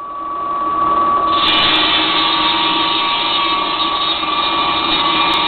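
Concrete groove-cutting saw with a 30-inch blade and 15 hp motor running with a steady high whine. It gets louder over the first second and turns harsher and fuller about a second and a half in.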